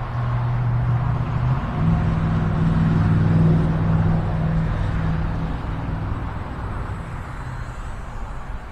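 Small electric motor and propeller of a UMX Raiden micro RC plane droning in flight, growing louder around the middle, then fading as it moves away, with its pitch shifting as the throttle changes. Gusty wind buffets the microphone throughout.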